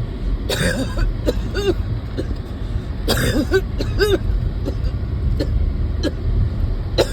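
A person coughing in harsh bursts: about half a second in, again about three seconds in, and once more near the end. Short strained vocal sounds come between the bursts. It is the chronic cough of someone who gets winded at the slightest exertion. A steady low rumble runs underneath.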